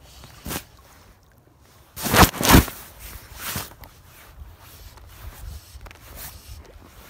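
Rustling and whooshing handling noise as a fly rod is cast, with a jacket sleeve rubbing close to the microphone. The loudest part is a double burst about two seconds in, with smaller ones before and after.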